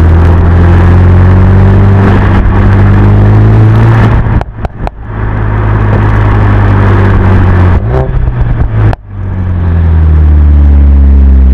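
Mercedes-AMG A45 S's turbocharged 2.0-litre four-cylinder engine running loud and steady. Its note drops away twice, about four seconds in and again near eight seconds, into short bursts of sharp exhaust pops and crackles. Around nine seconds it cuts off abruptly, then builds back up to full level.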